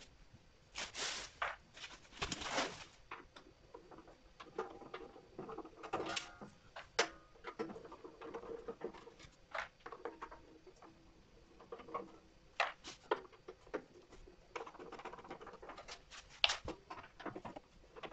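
Screwdriver backing out the screws of a metal inverter casing, with scattered clicks, scrapes and rattles of the tool and the cover being handled.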